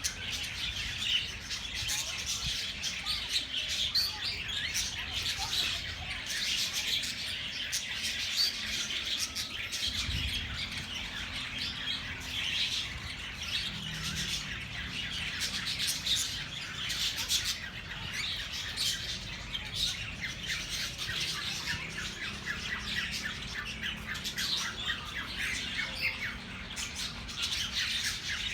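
A flock of small birds chattering continuously, a dense mix of rapid chirps and squawks with no pause.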